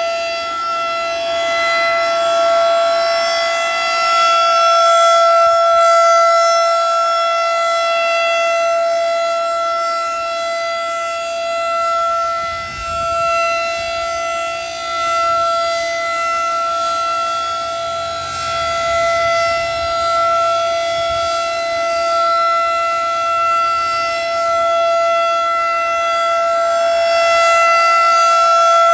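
Federal Signal 2001 DC rotating outdoor warning siren sounding a steady, unchanging tone at full pitch. Its loudness swells and dips slightly as the horn turns toward and away.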